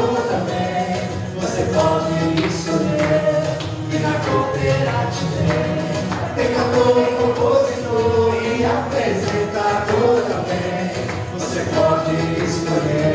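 Music: a group of voices singing together over instrumental accompaniment with a steady beat.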